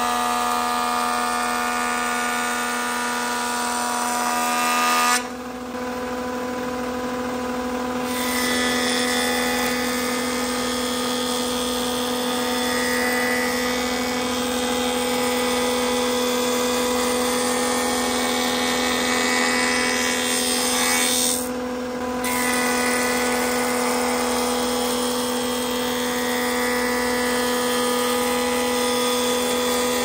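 Jointer running with a steady motor hum as its cutterhead planes a pine board in repeated passes. The rushing cutting noise drops away for about three seconds around five seconds in and again briefly just after twenty seconds, leaving the hum of the machine running free.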